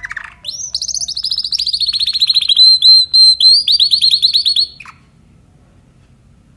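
Spanish timbrado canary singing: loud, rapid trills of repeated high notes, phrase running into phrase, stopping abruptly about five seconds in.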